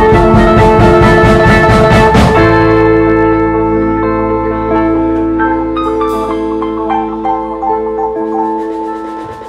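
Live instrumental rock band with drum kit, electric guitar and bass guitar playing. About two seconds in the drums stop, and the guitars ring on with held notes that slowly fade.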